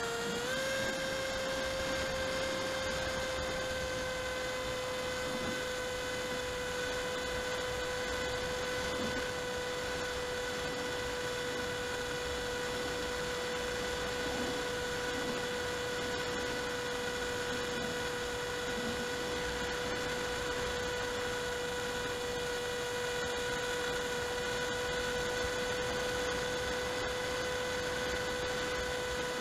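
A model aircraft's motor and propeller in flight, heard through the onboard camera: a steady hum that holds one pitch throughout, over light wind noise.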